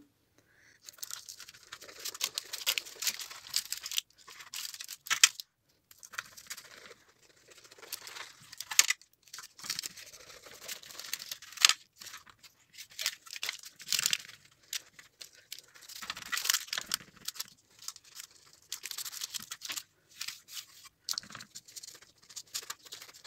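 Knife slicing through the crisp, flaky baked crust of a hand-rolled leek börek: irregular crackling and crunching in short strokes, with brief pauses between cuts.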